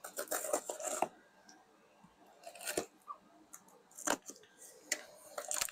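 Razor blade slitting open a cardboard box: a run of scratchy cuts in the first second, then a few separate sharp scrapes and clicks of blade and cardboard.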